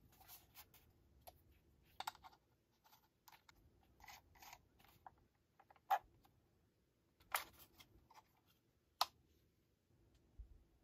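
Plastic handling noise from a DJI Mini 2 remote controller: scattered light clicks and rustles as it is handled, with a few sharper clicks, the loudest about halfway and twice more in the second half.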